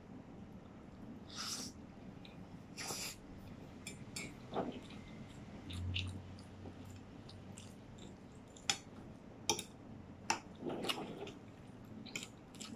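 Quiet eating sounds with no speech: two breathy puffs in the first three seconds over a hot forkful of noodles and egg, then soft chewing and a few sharp clicks of a metal fork against a plate.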